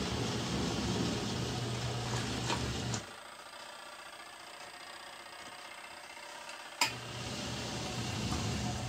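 Kuppet portable twin-tub washer's wash motor churning a load of towels in water, with a steady low hum. It stops about three seconds in, stays quiet for about four seconds, then a sharp click and the motor starts again.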